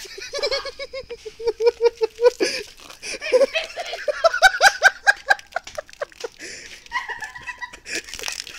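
A person laughing hard in a quick run of repeated 'ha's, the pitch climbing higher around the middle, then breathy, weaker laughter near the end.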